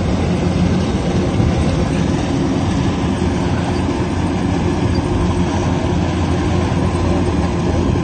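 Kubota rice combine harvester running steadily, an even mechanical drone with a constant low engine hum.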